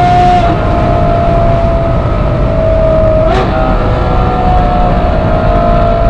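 Ferrari 812 GTS's 6.5-litre V12 through a Novitec exhaust running at high motorway speed as the car slows, its note drifting gently down. About halfway through there is a short crack with a gear change, and the note then steps up a little. Wind and road noise lie under it.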